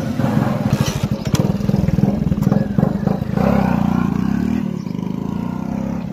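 Hero Splendor Plus single-cylinder four-stroke motorcycle engine pulling away and riding off. Its exhaust note is deepened by a cut-off plastic water bottle jammed into the silencer outlet, a home-made trick to copy a Royal Enfield Bullet's thump. The exhaust pulses are uneven for the first few seconds, then settle into a steadier note that grows quieter as the bike moves away.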